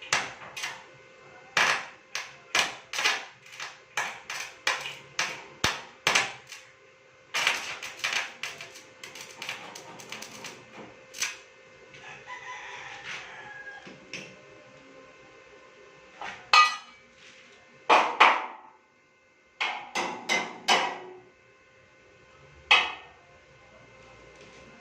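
Runs of hammer strikes on metal, about two a second, each with a short ring. They pause in the middle while a rooster crows in the background, then a few louder strikes follow.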